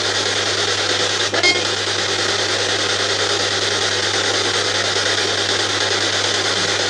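Ghost box (spirit box) sweeping through radio frequencies: steady loud static hiss over a low hum, with a brief clipped radio fragment about one and a half seconds in.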